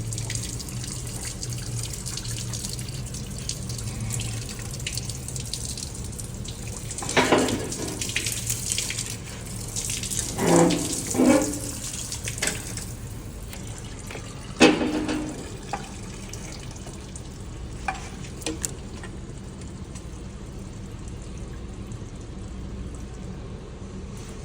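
Metal parts and tools clanking against each other in a few separate knocks with a short ring, over a steady low hum and hiss.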